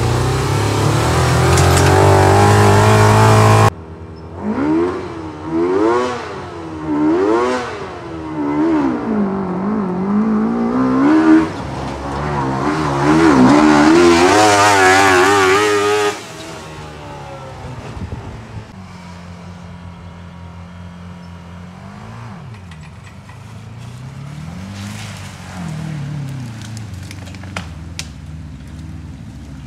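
Suzuki GSF-400 inline-four motorcycle engine, swapped into a Kawasaki Mule side-by-side, running steadily under load as heard from inside the cab. After an abrupt cut it revs high and drops again and again for about twelve seconds, then settles to a fainter, lower running sound with a few small swells.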